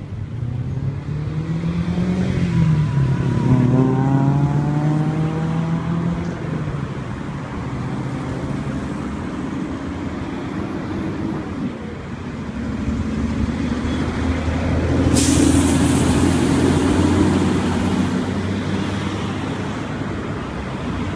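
Road traffic passing, with vehicle engines rising and falling in pitch as they go by twice, and a sudden air-brake hiss about fifteen seconds in.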